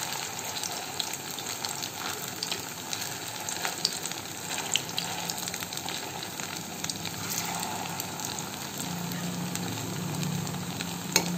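Chhana (cottage cheese) kofta balls deep-frying in hot refined oil in a metal kadai: a steady sizzle with fine crackling throughout. A spoon clinks sharply against the pan near the end.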